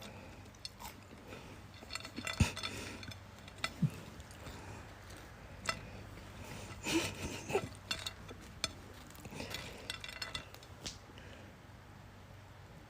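Scattered light clinks and clicks, like small hard objects such as dishes or cutlery knocking, at irregular moments with a few louder ones about 2½, 7 and 7½ seconds in.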